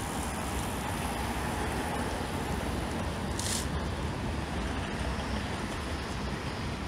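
Steady city traffic noise with a low rumble, with a brief high hiss about halfway through.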